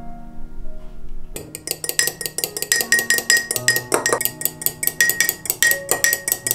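A metal spoon beating raw eggs in a ribbed drinking glass, clinking rapidly against the glass several times a second, starting about a second and a half in. Background music plays throughout.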